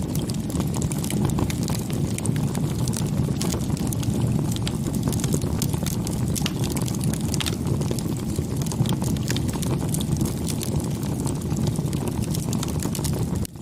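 Wood fire burning: a steady low rush of flame with many small, irregular crackles and pops.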